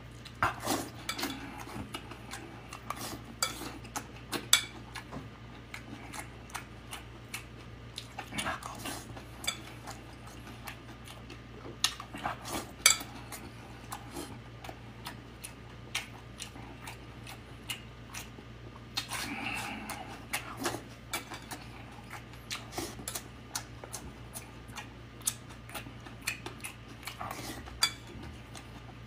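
A metal spoon clinks and scrapes against a ceramic plate of rice in many short, irregular clicks, with close-up chewing and mouth sounds from eating. A steady low hum runs underneath.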